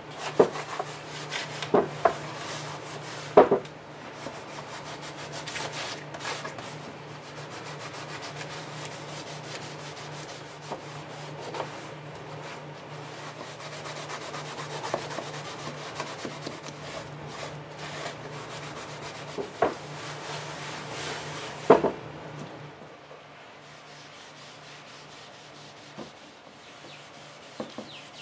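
Hand scrubbing on the wooden surface of a solid mahogany desk: a steady rubbing, broken by a few sharp knocks, the loudest near the start and about 22 seconds in.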